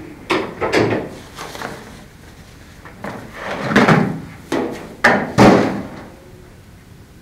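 Sheets of paper rustling and shuffling as someone rummages through a storage box of documents, in about five bursts, the loudest a few seconds in.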